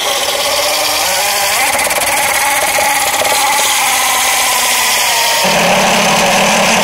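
Evolve GT electric skateboard's belt-driven motors running at full throttle under heavy load, the tyres doing a burnout against concrete: a loud, steady whine and rasp. A lower drone comes in about five and a half seconds in as the current climbs toward stall.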